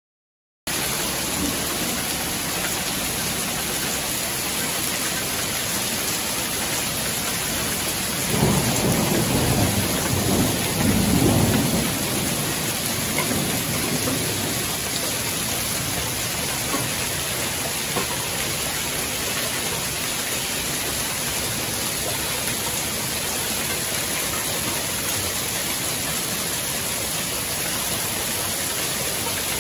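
Hail and heavy rain pelting pavement and grass in a steady hiss that cuts in just under a second in. A deep roll of thunder rumbles through it from about eight to twelve seconds in.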